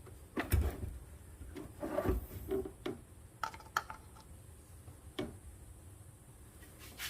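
Handling noises: a string of light clicks, knocks and rubbing scrapes, the loudest knocks about half a second and two seconds in.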